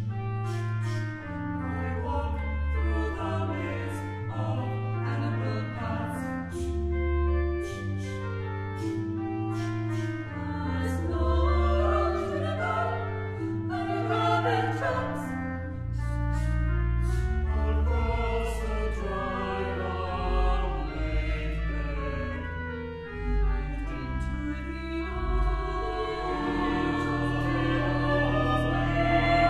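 SATB choir singing with organ accompaniment, with long held low organ notes underneath, on the lines "Past gnarled juniper and rabbit tracks" and "Across the dried up lakebed and into the arms of an awaiting soul".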